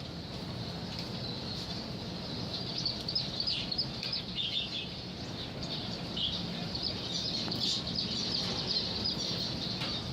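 Many caged birds chirping and twittering continuously, their short calls overlapping, over a steady low hum.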